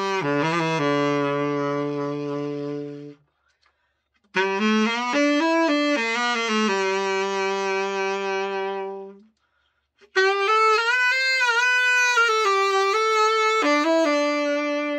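Selmer Mark VII tenor saxophone played in three short phrases of held notes, separated by brief silences, the last with vibrato. It is a play test of the horn after a full overhaul and pad setting.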